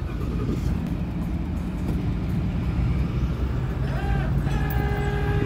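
Steady low rumble of a vehicle engine running. About four seconds in, a steady whine of several tones rises briefly, then holds.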